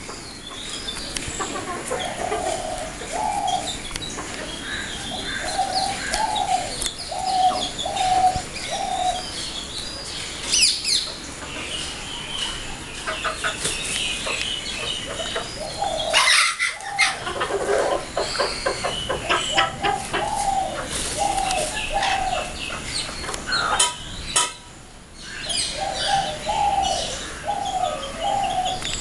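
Cochin bantam chickens calling: scattered clucks and chirps, with a repeated series of four or five low cooing notes coming back every few seconds, and a few sharp knocks.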